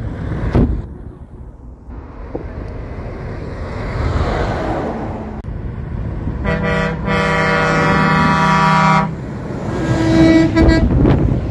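A truck's engine running as it approaches, then a truck horn blasting for about two and a half seconds, briefly broken near its start, and a second, shorter horn note as the truck passes close.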